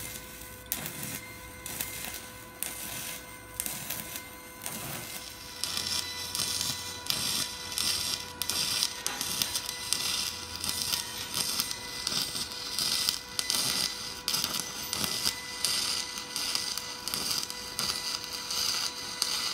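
Pulsed stick (SMAW) welding of cast iron with a 1/8-inch Rockmount Jupiter A electrode at about 100 amps DCEP on an HTP Inverarc 200 TLP inverter: the arc crackles steadily over a constant buzzing tone, and grows louder and hissier about six seconds in.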